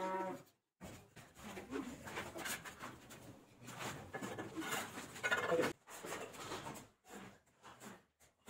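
A mason's trowel scraping mortar and tapping bricks into place, a run of short scrapes and knocks with a few abrupt breaks. A brief voice-like sound comes about five seconds in.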